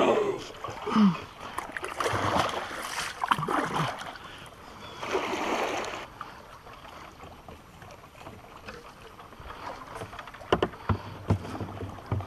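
A kayak working past a downed tree trunk: water swishes and rustles around the hull in two stretches, then several sharp knocks near the end as the paddle and hull bump against the wood and branches.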